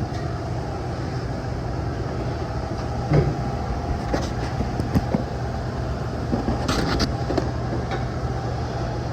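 Steady low machinery hum, with a few sharp clicks and knocks from handling tools or parts.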